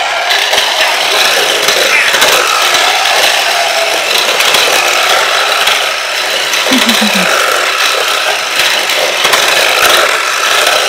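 Smart Steer Lightning McQueen remote-controlled toy car driving on a tile floor, its small electric motor and plastic gears whirring steadily.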